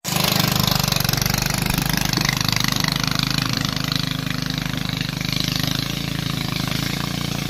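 A small engine running steadily at a constant speed, with a fast, even pulse and a hiss over it.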